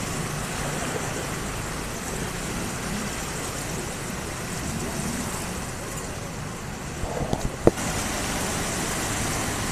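Steady wash of traffic noise from vehicles wading through a flooded road, mixed with the hiss of moving floodwater. A few knocks come about seven seconds in, then one sharp, loud click.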